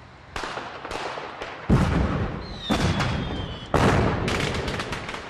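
A series of sharp, explosive bangs about a second apart. The loudest carry a deep rumble that dies away, and the series ends in a quick rattle of several smaller cracks. A faint falling whistle sounds midway.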